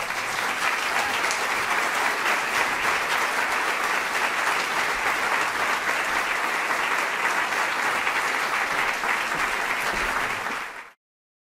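Concert audience applauding steadily in a hall, then cut off quickly near the end.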